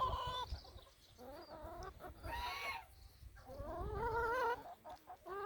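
Laying hens clucking, a run of drawn-out, wavering calls one after another, with wind rumbling on the microphone.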